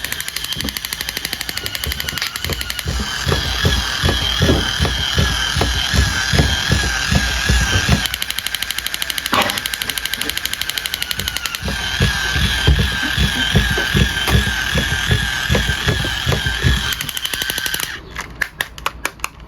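Electronic machine-gun sound effect from a battery toy: a fast rattle of shots under a warbling, two-tone electronic beep. It breaks off briefly about eight seconds in and falls apart into scattered clicks near the end.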